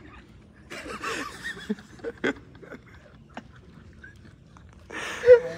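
Men chuckling and murmuring quietly, with a few small sharp clicks, and a short loud vocal outburst near the end.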